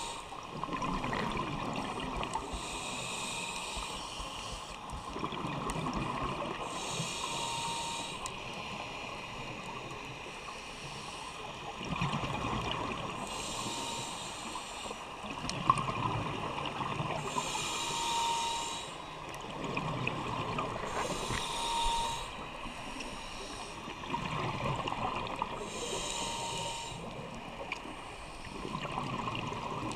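Scuba diver breathing through a regulator underwater: a hiss on each inhalation, then the bubbling rumble of the exhaled air, one breath every four to five seconds.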